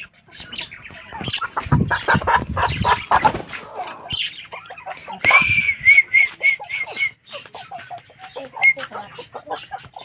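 Aseel chickens clucking, with a burst of wing flapping about two seconds in and a quick run of about six short, high, evenly spaced calls around the middle.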